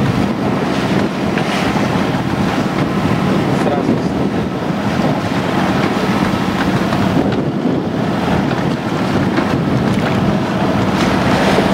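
Strong wind buffeting the microphone over the steady rush of choppy sea along the hull of a sailing yacht under way.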